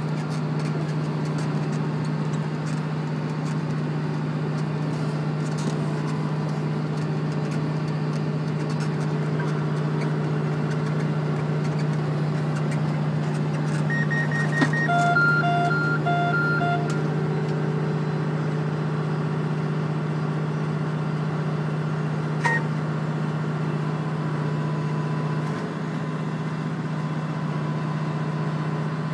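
Tractor engine running steadily under load while towing a McHale F560 round baler as it picks up straw. About halfway through, a short run of electronic beeps, four of them in a row, sounds over the drone.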